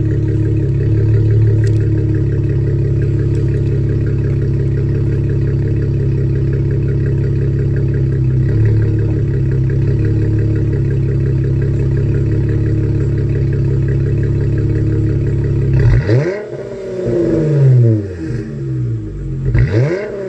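2019 Dodge Challenger GT's 3.6-litre V6 idling steadily through an exhaust with Cherry Bomb Xtreme mid mufflers, deleted resonators and straight pipes to quad tips. Near the end it is revved twice, each rev climbing sharply and falling back to idle.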